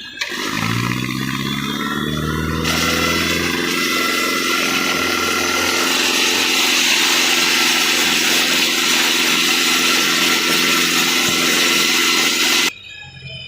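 Compressor-driven rock drill rig starting up on sandstone: its pitch rises over the first couple of seconds, then it runs steadily and loudly with a strong hiss, and cuts off suddenly near the end.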